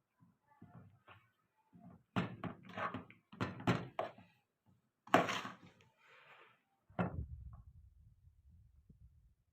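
A series of irregular kitchen knocks and thuds, like utensils, bowls or a cupboard door being handled. The loudest is a sharp bang about five seconds in, and a low rumble follows a knock near seven seconds.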